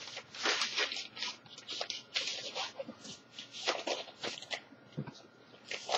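Paper LP inner sleeve and cardboard gatefold album jacket rustling and sliding as they are handled, in a run of short, irregular scrapes.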